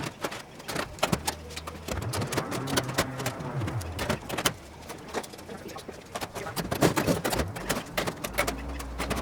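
Birds calling over a string of sharp clicks and knocks, with a low hum coming in about a second in and again near the end.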